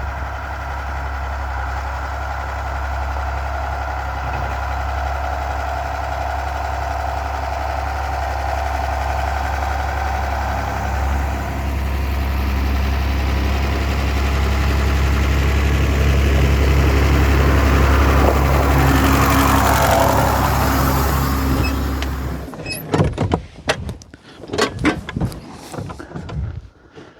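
A tractor engine running steadily, growing a little louder, then stopping abruptly about 22 seconds in. A series of sharp knocks and clatters follows.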